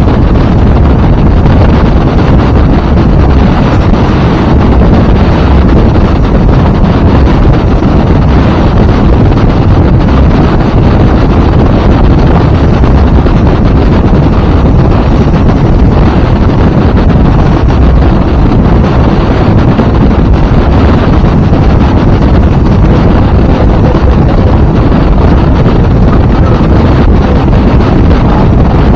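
Heavy wind buffeting the microphone over a 2000 StarCraft motorboat running through big waves, a loud, steady, low rush with no clear engine tone standing out.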